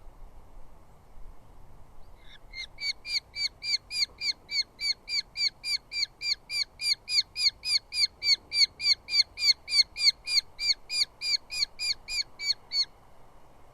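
Eurasian hobby calling in a long, even series of short notes, about four a second, for about ten seconds, starting about two seconds in.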